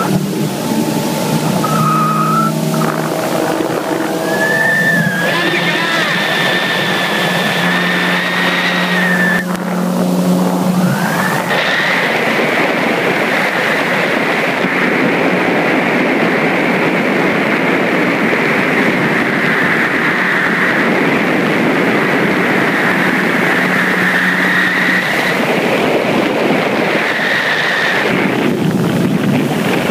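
Motorboats running at speed side by side, with water rushing along the hulls and wind buffeting the microphone. For the first ten seconds or so some higher pitched sounds rise and fall over the steady noise.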